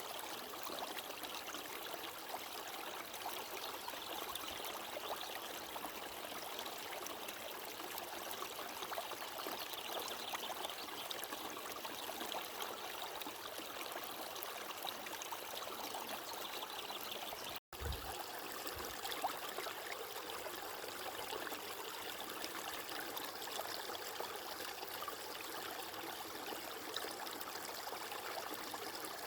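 Water flowing steadily, a stream-like rushing trickle with no change in pace. The sound cuts out for an instant about 18 seconds in, then carries on.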